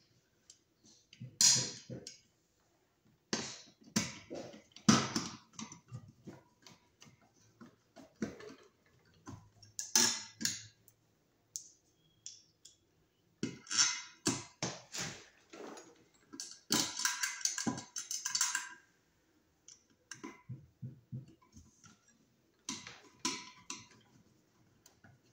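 Irregular clicks, clinks and short scraping rattles of Wiremold surface raceway parts being handled and pressed into place, with a longer rattling stretch about two-thirds of the way through.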